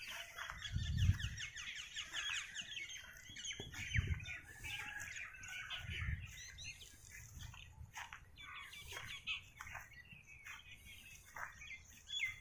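Many small birds chirping and calling in quick, overlapping short notes, with a few low rumbles about one, four and six seconds in.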